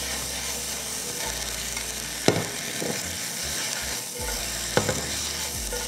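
Leafy greens sizzling in a hot carbon steel wok as they are tossed and stirred to mix in the seasoning: a steady frying hiss broken by a few sharp knocks, the loudest about two seconds in.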